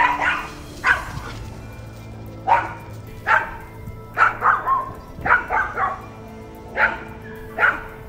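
Chihuahua barking at a bear in short, high-pitched yaps, about a dozen, irregularly spaced with some quick runs of two or three: loud territorial alarm barking. Background music plays underneath.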